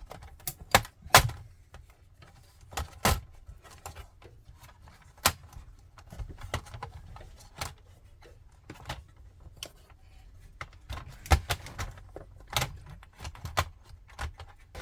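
Irregular sharp clicks and knocks from the plastic body of a Dell Inspiron 5559 laptop as its case is pried apart and lifted off.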